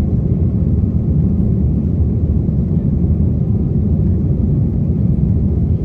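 Steady low rumble of an Airbus A320-232's IAE V2500 engines and airflow, heard inside the passenger cabin in flight.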